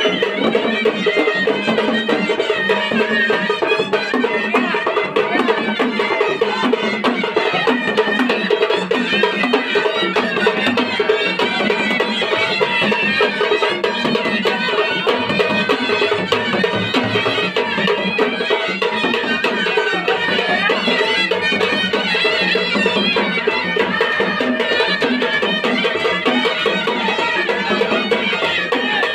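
Traditional vajantri procession band playing loudly: dhol and tasha drums beat densely under wind instruments carrying a wavering, reedy melody.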